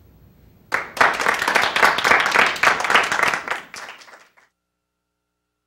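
Audience applauding. The applause starts just under a second in and cuts off abruptly after about three and a half seconds.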